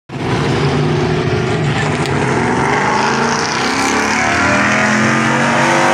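Race car engine running at speed around an oval track, its pitch rising steadily through the second half as it accelerates.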